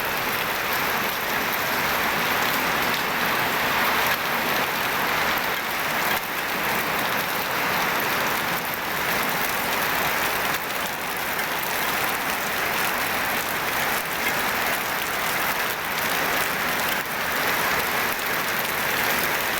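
Very heavy rain pouring steadily, a dense even hiss of drops.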